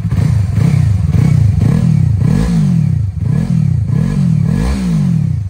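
Yamaha R3's 321 cc parallel-twin engine revved through a Dominator R aftermarket slip-on exhaust: about eight quick throttle blips in a row, each rising and falling in pitch, settling back to idle at the end.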